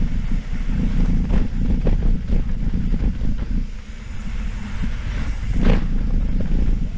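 Wind buffeting the microphone over the rumble and rattle of a mountain bike running down a rough dirt trail, with frequent short knocks from bumps and one louder knock about five and a half seconds in.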